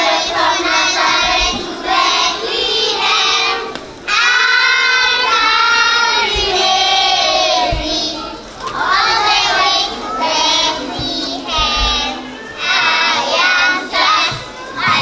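Young children singing together over music.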